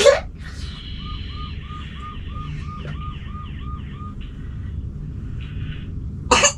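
A repeating electronic chirp, about three a second for about three seconds, over a steady low hum. A short loud burst comes near the end.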